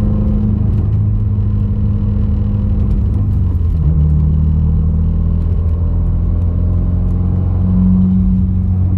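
Subaru WRX turbocharged flat-four engine and road noise while driving at part throttle. The engine note drops about four seconds in and swells briefly near the end.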